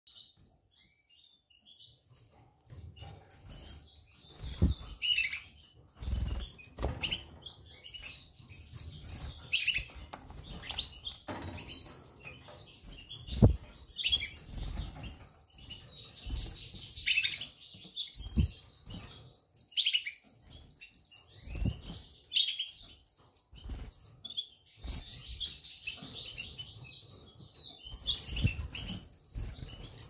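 Canaries chirping in short, rapid trills, with wing flutters and scattered sharp knocks, the loudest about halfway through.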